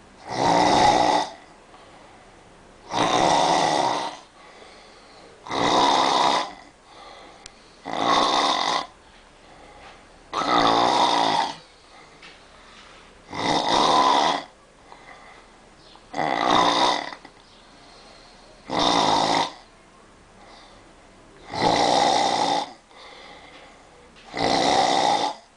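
Loud snoring in a steady rhythm: ten snores, each about a second long and about two and a half seconds apart, with quiet breathing between them.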